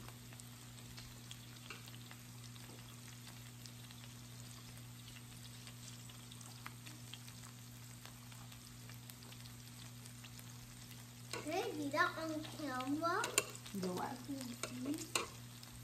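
Pork belly and king mushroom slices sizzling on an electric raclette grill plate: a steady, soft frying hiss over a low steady hum. About eleven seconds in, a voice murmurs for a few seconds over the sizzle.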